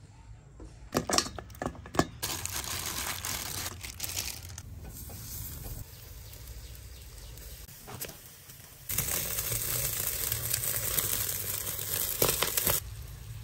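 Chicken feet sizzling and crackling on a wire grill over an open fire, in two spells of hiss, with a few sharp clicks about a second in.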